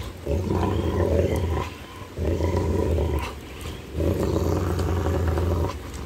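Rottweiler play-growling while tugging on a rubber ball held in a person's hand: three long, low growls, each a second or two long, with short gaps between.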